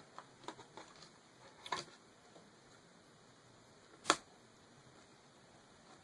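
Small screws being fitted into a laptop screen's mounting with a screwdriver: a few faint clicks in the first two seconds and one sharp click about four seconds in.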